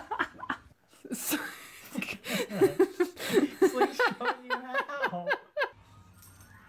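Laughter: a sudden breathy burst about a second in, then a run of quick, pitched laughing notes for a few seconds that stops shortly before the end.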